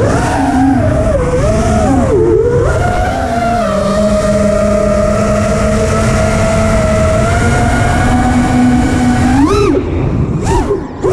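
FPV racing drone's electric motors whining. The pitch wavers with the throttle at first, holds fairly steady for several seconds, then makes quick sharp rises and falls near the end, over a low rush of noise.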